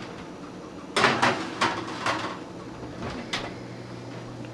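A few sharp knocks and clinks of kitchen handling, like dishes or a cupboard, about a second in, with one more a little past three seconds. A steady low hum lies underneath.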